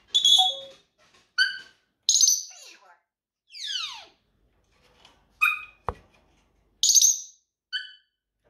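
African grey parrot calling: a string of short, high whistles and chirps, with one longer whistle falling in pitch about halfway through. A single sharp click comes shortly after the falling whistle.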